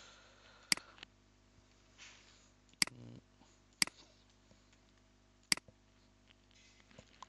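Four sharp, separate clicks of a computer mouse and keyboard, spaced one to two seconds apart, against a quiet room.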